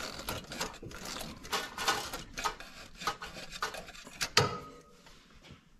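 Oil filter wrench working a spin-on oil filter loose: a run of scraping, rubbing and clicking as the tool grips and turns the filter, with one louder click about four seconds in.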